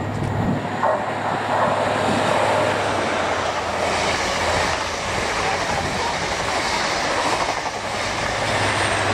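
High Speed Train (Class 43 diesel power car hauling Mk3 coaches) passing through the station at speed. A broad rushing clatter of wheels on rail builds from about a second in and is loudest from about four seconds on, as the coaches go by.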